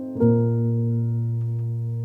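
Background piano music: a soft chord struck about a quarter second in, left to ring and fade.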